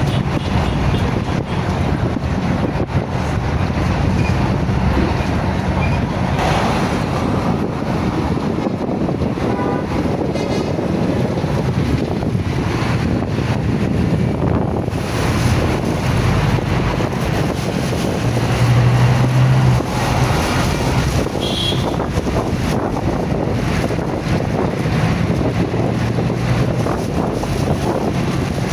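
Wind buffeting the microphone over a steady din of outdoor street traffic and crowd, with a low hum that comes and goes.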